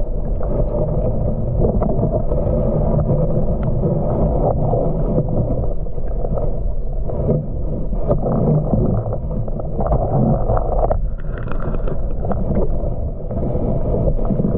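Muffled underwater noise heard through a submerged camera: a steady low rumble and water rush, with scattered faint clicks.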